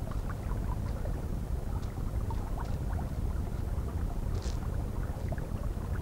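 Muffled underwater stream sound: a steady low rumble of moving water with scattered small clicks and ticks, and a brief hiss about four and a half seconds in.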